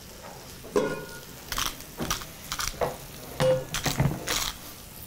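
A pepper mill being twisted over a frying pan, grinding in a series of short, irregular crunches, with light clinks of kitchen utensils.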